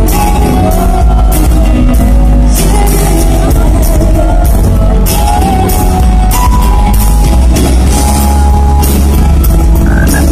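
Live band playing loudly through the PA, with a singer's voice carrying the melody over electric bass and drums.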